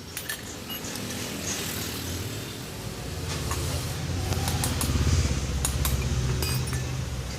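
Repeated sharp metal taps and knocks as a worn 6202 ball bearing is tapped out of a BLDC ceiling fan's cover, under a low rumble that builds through the middle and peaks about five seconds in.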